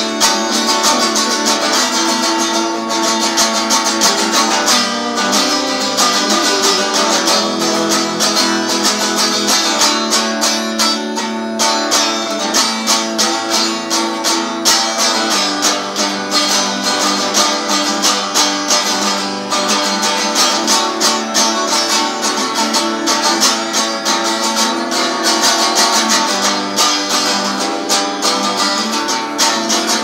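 Electric guitar strummed in a fast, steady rhythm, chords ringing on without a break.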